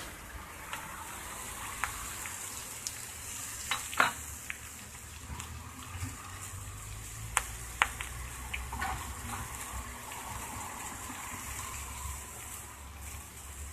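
Chopped kokoreç sizzling steadily in clay roof-tile dishes, with a few sharp clicks scattered through the sizzle, the loudest about four seconds in.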